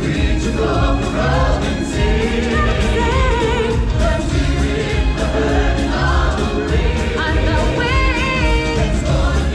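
Stage show music played loud over a theatre sound system: a choir of voices singing over a heavy, steady bass beat, with vibrato voices standing out near the end.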